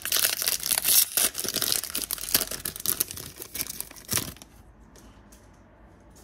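Foil trading-card booster pack wrapper crinkling and tearing open by hand for about four seconds, then stopping; after that only faint clicks of the cards being handled.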